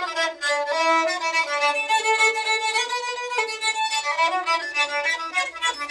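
Fiddle bowed in a simple melody of held notes, sometimes two strings at once, with a short slide up in pitch about four seconds in.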